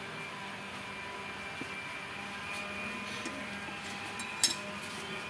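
Steady background hum with faint scattered ticks, and one short sharp click about four and a half seconds in.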